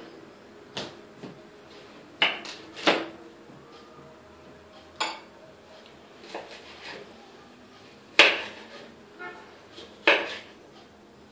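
Kitchen knife chopping a cucumber on a wooden cutting board: about a dozen irregular sharp knocks of the blade striking the board, the loudest about eight seconds in.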